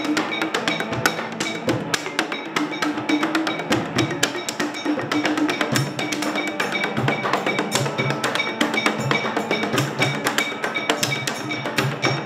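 Percussion played with a stick on empty plastic water bottles mounted around a wooden stand: a fast, steady rhythm of dry taps and clicks, with a held low note sounding under the strikes.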